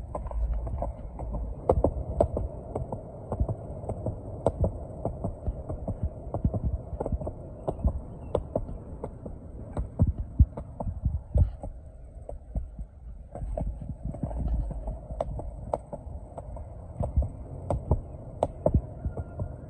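Penny board wheels rolling over pavement: a steady low rumble with frequent sharp knocks at irregular spacing.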